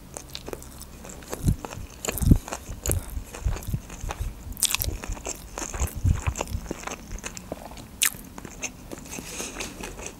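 Close-miked chewing of a mouthful of sushi roll topped with chuka seaweed salad: irregular crunching and clicking mouth sounds, with a few louder crunches scattered through.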